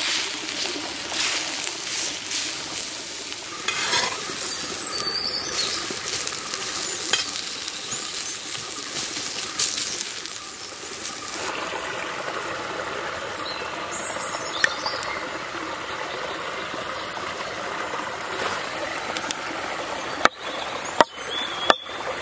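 Beef steak sizzling and crackling in a shallow iron pan over wood embers, with a blade scraping at the meat. About halfway through it gives way to a quieter steady background. Near the end come three sharp knife chops on a wooden board.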